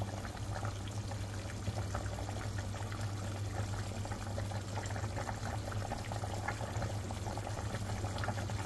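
Chicken tinola broth simmering in a stainless steel pot on the stove, a steady bubbling with many small pops, over a low steady hum.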